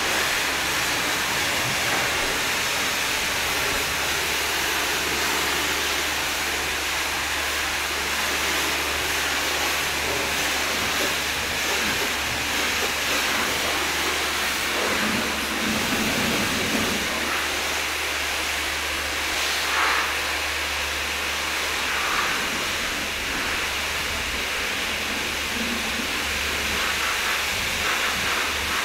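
Pressure washer spraying water onto a car, rinsing off the wax: a steady hiss of spray over a steady low hum.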